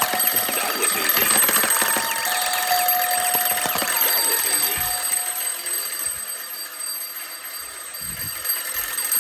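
Several alarms going off at once: a dense clash of ringing and beeping tones under steady high-pitched tones. Some of the alarms stop about five seconds in and the din gets a little quieter.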